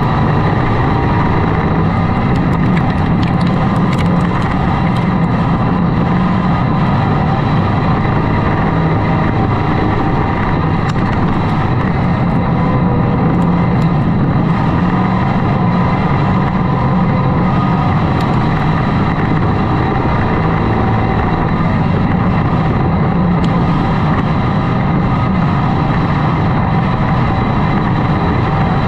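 Hobby Stock dirt-track race car's engine running hard at racing speed, heard from inside the cockpit: a loud, steady drone that barely changes in pitch.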